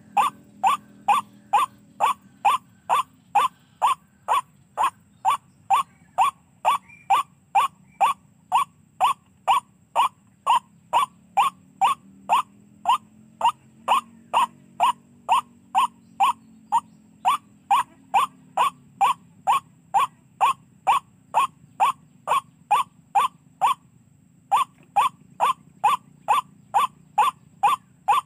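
White-breasted waterhen call played on a loop from an electronic bird-call player used as a lure: short 'kwak' notes repeated evenly about twice a second, with one brief break near the end.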